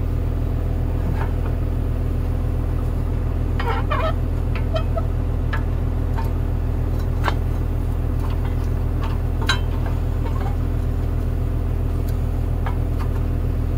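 An engine idling steadily, with scattered light metallic clicks and clinks from hand tools working on the dozer's steel track-tensioner parts.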